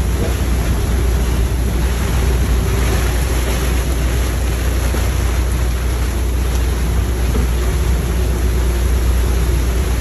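Strong storm wind rushing over a sailboat's cockpit and buffeting the microphone: a loud, steady noise with a heavy low rumble.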